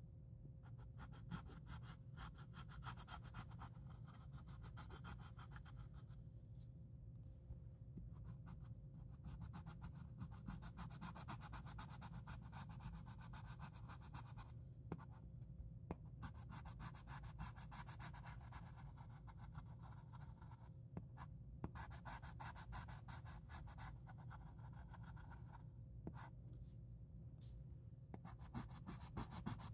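Yellow coloured pencil shading on paper: fast back-and-forth scratching strokes in long stretches, with a few short pauses between them.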